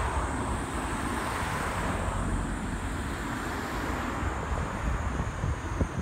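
Wind buffeting the microphone over the low rumble of a train running along the tracks in the distance.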